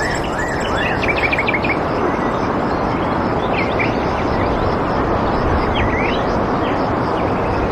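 Songbirds chirping in short, quick, rising calls, a flurry in the first two seconds and more around the middle, over a loud, steady rushing noise.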